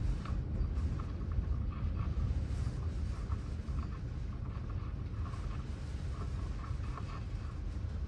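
Strong gusty wind behind a passing cold front, heard from inside the building as a low, wavering rumble with faint, irregular ticking.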